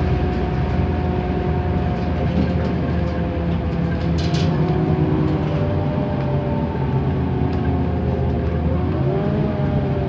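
Interior drone of a NABI 31 LFW transit bus under way: its Cummins Westport ISL G natural-gas engine and driveline run steadily with road noise, and a brief rattle comes about four seconds in. Near the end the pitch of the drivetrain tones shifts as the bus changes speed.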